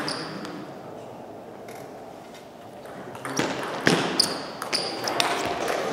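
Table tennis doubles rally: the ball clicking off bats and table in a run of quick strikes through the second half. A few short squeaks of shoes on the sports-hall floor are mixed in.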